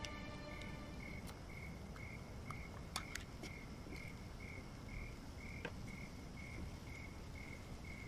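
Crickets chirping in a steady, even rhythm, a little over two chirps a second, with a few light clicks and taps.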